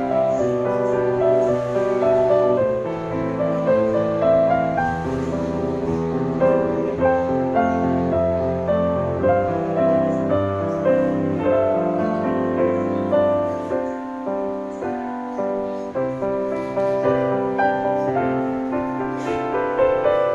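Background piano music, one note after another without a break.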